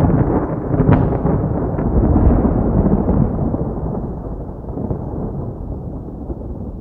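Rolling thunder: a loud, deep rumble with a few sharp cracks in the first couple of seconds, slowly dying away.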